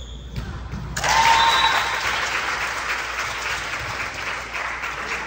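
Spectators clapping and cheering, breaking out suddenly about a second in and slowly tapering off.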